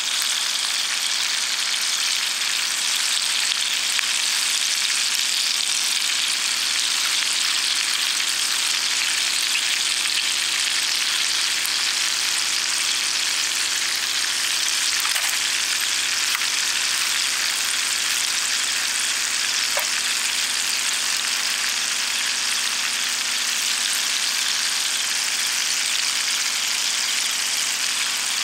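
Steady sizzling of an ajillo cooking in a cast-iron skillet over charcoal, with a faint tick or two midway.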